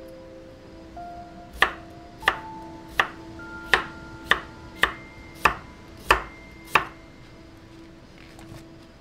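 Kitchen knife slicing a cucumber into rounds on an end-grain wooden cutting board: about nine sharp knocks of the blade hitting the board, evenly spaced at about one and a half a second, stopping about seven seconds in. Soft background music plays under it.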